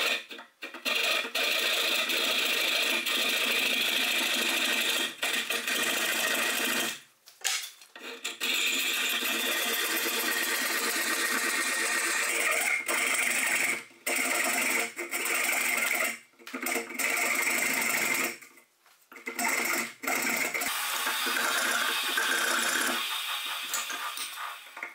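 Fine-toothed hand saw cutting through a wooden block held in a bench vise, in fast, continuous strokes that stop briefly several times.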